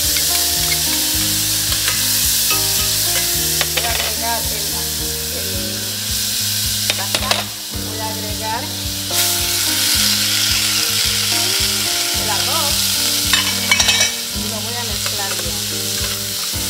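Ground garlic sizzling in hot oil in a stainless steel saucepan, with a metal spoon stirring and clinking against the pan a few times.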